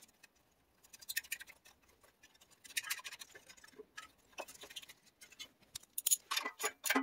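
Ratchet wrench clicking in several short, quick runs as the muffler's mounting nuts are run down.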